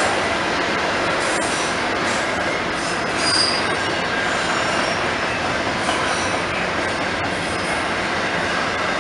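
Double-stack intermodal container train rolling past, a steady noise of steel wheels on rail with brief high-pitched wheel squeals, the sharpest a little over three seconds in.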